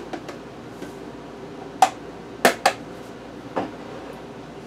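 Spice containers being handled at the counter: a few faint ticks, then four sharp clicks and knocks. The two loudest come about two and a half seconds in.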